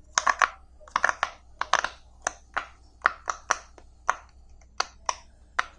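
Bubbles of a silicone pop-it fidget toy being pushed through one after another with the fingertips: a string of short, sharp pops, roughly three a second at an uneven pace, some coming in quick pairs or threes.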